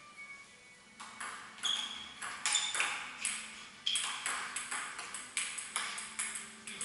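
Table tennis rally: the ball clicking sharply off the rackets and the table in quick alternation, several hits a second, starting about a second in.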